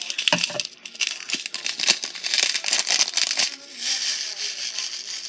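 Sprinkles rattling in a clear plastic container and crinkling plastic as it is opened and shaken, many small clicks and rattles, then a steady hiss near the end as sprinkles pour out over the mug.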